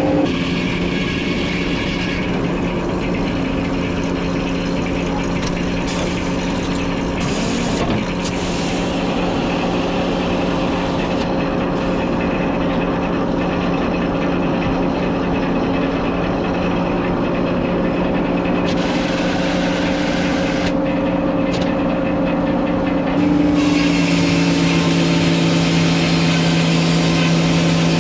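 Sawmill engine running steadily under power. About two-thirds of the way through its pitch drops slightly and it grows louder, with more hiss over it.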